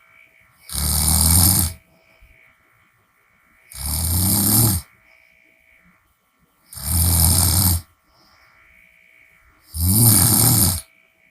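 A person snoring through an open mouth: four loud snores about three seconds apart, each lasting about a second, with quiet breathing between.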